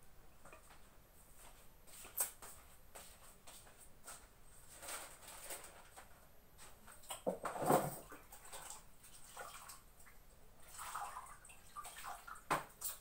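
Faint, irregular water splashes and clatter of hands being washed, in short bursts with the loudest just past halfway and another sharp one near the end.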